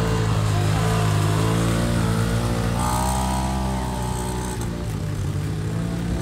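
Off-road vehicle engines running steadily as a four-wheeler and a RZR side-by-side drive through a shallow creek.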